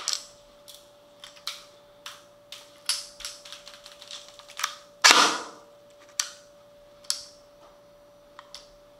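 G&G PCC45 airsoft electric gun firing single shots in an irregular string, roughly one every half second, with one louder, longer crack about five seconds in. The shots thin out after about seven seconds, with a couple of faint clicks near the end.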